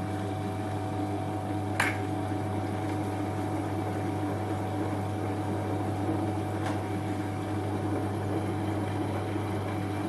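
Metal lathe running at its lowest spindle speed, a steady mechanical hum with a constant whine, while a 7 mm cobalt drill in the tailstock is fed into the end of a hard steel Morse taper. A sharp click about two seconds in.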